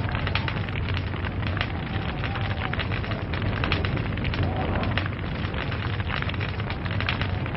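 Wood log fire crackling: many quick, irregular sharp pops over a steady low rumble of the burning fire.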